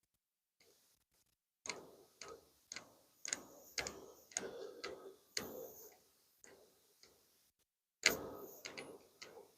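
Microphone wiggling loose in its mount as the wearer walks, giving irregular sharp clicks about two a second, with a short pause before they pick up again near the end.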